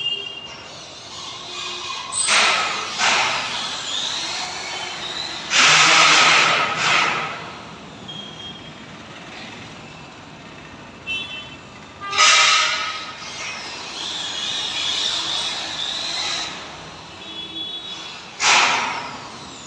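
Metal false-ceiling channels being worked at: four loud scraping, hissing bursts of about a second each, with thin metallic ringing between them.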